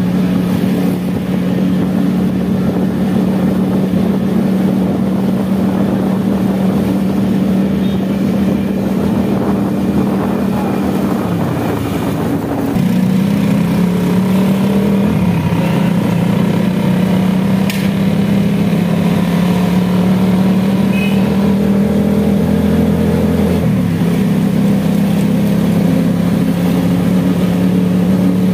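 Small engine of a motorcycle rickshaw running steadily while riding in traffic. About halfway through its pitch dips as it eases off, then it picks up again and runs a little louder.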